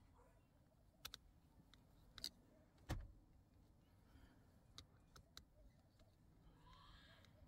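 Faint, scattered clicks of a hex key working the small clamp screws of a steering-wheel push-to-talk button; the loudest click comes about three seconds in.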